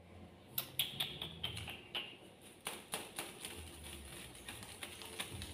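Irregular light clicks and taps, densest in the first three seconds and thinning out after, with a faint high chirp heard a few times about one to two seconds in.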